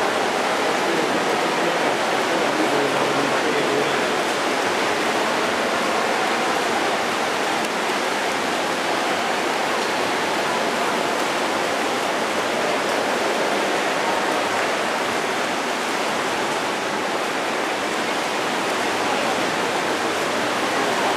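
Steady rushing noise of an indoor swimming pool during a race, the water churned by swimmers' strokes and kicks.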